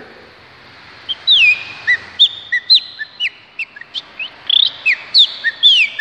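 A man whistling an imitation of a chopi blackbird (pássaro-preto) song. It is a quick run of short whistled notes, some sliding down and some sliding up, starting about a second in.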